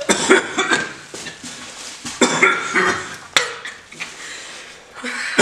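Two people coughing and gagging in several bursts, retching over a plastic bag after chewing a foul-tasting jelly bean.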